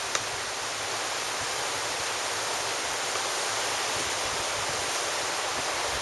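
Ocean surf breaking on the beach, heard as a steady, even wash of hiss, with a single small click just after the start.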